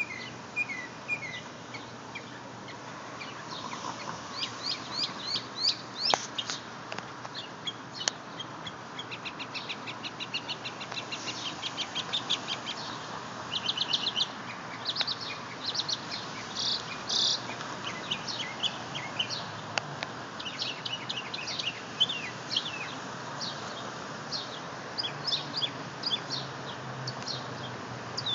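Northern mockingbird singing a long, varied song: quick series of repeated high notes and trills, switching to a new phrase every few seconds.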